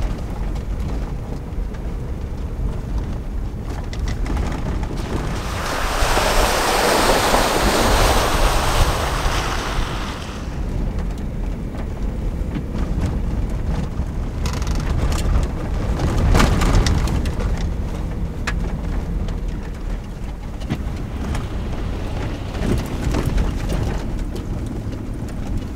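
SUV driving slowly on a dirt road, heard from inside the cabin: a steady low rumble of engine and tyres. About six seconds in a loud rushing noise swells for roughly four seconds, with shorter, weaker rushes later on.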